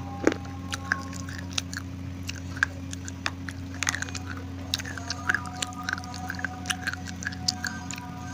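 Pieces of baked edible clay (Punjab mitti) being bitten and chewed close to the microphone: a run of sharp, irregular crunches, bunched several a second at times, over a steady low hum.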